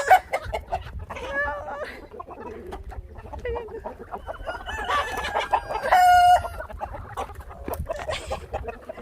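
Chickens clucking, with short calls scattered throughout, and a rooster's loud crow about six seconds in.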